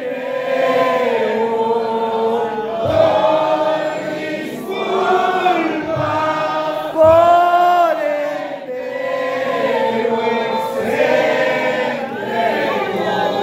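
A man singing a Spanish-language praise song (alabanza) into a microphone, with congregation voices joining in. The phrases are long, with drawn-out notes, and a few low thumps come partway through.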